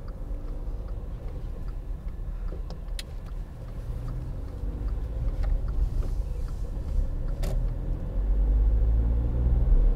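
In-cabin sound of a Volkswagen up!'s 1.0-litre three-cylinder engine pulling the car along, with road rumble. The low rumble grows louder about eight seconds in.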